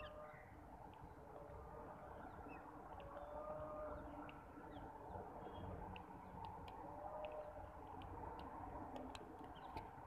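Faint bird sounds: scattered short high chirps and clicks, and a few drawn-out low calls about a second long, over a steady low background rumble.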